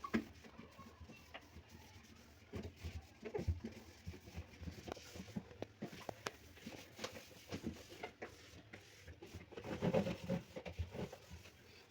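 Wet cloth wiping and scrubbing the inside walls of a fridge, with scattered light knocks and clicks against the plastic lining, busiest about ten seconds in.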